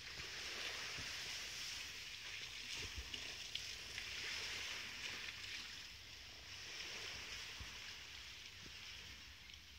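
Lake water lapping at the shore, a soft hiss that swells and fades, with low wind rumble on the microphone.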